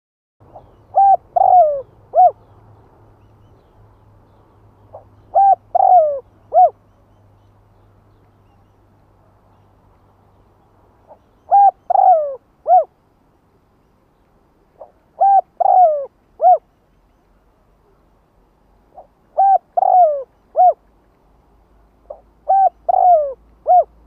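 Spotted dove cooing its song six times, about every three and a half to four seconds, each phrase a soft lead note followed by three coos, the middle one longer and falling in pitch. It is a decoy dove's song, the kind used to lure wild spotted doves in.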